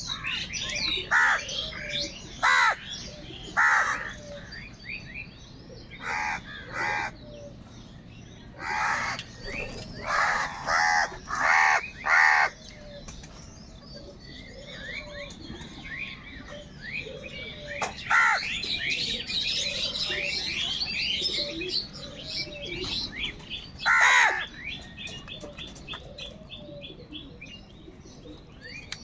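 Crows cawing, loud harsh calls that come singly or in quick runs of two to four, over the steady chirping of small birds.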